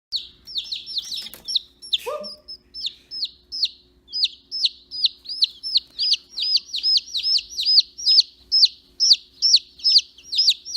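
Baby chicks peeping: a steady run of short, high-pitched peeps, each dropping in pitch, about three a second. A brief lower note sounds about two seconds in.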